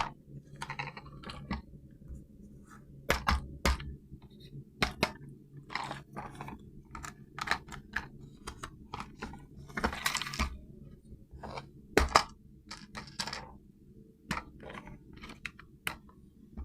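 Irregular clicks, taps and crinkly rustles of toy packaging and parts being handled during unboxing, with a few louder knocks, over a steady low hum.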